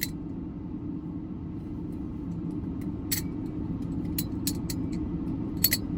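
Plastic trainer balisong (Flip Forge Edit Lite) being flipped, its handles giving about half a dozen sharp, short clicks, over the steady low hum of a car's running engine.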